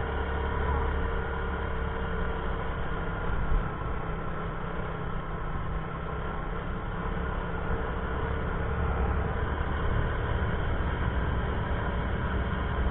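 Motorcycle engine running steadily while riding, mixed with wind and road rumble.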